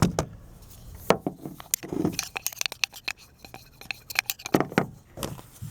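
Irregular clicks, taps and scrapes of a screwdriver and small metal parts being handled against a plastic magnetizer block.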